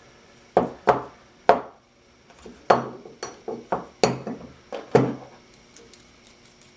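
Lengths of perforated square steel tubing knocking and clinking against each other as they are handled and fitted together, about ten sharp metallic knocks with a short ring after each, stopping about five seconds in.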